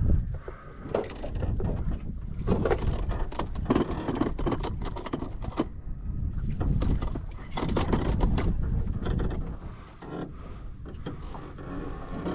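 Irregular knocks and clatter of fishing gear being handled aboard a small boat, over a steady low rumble.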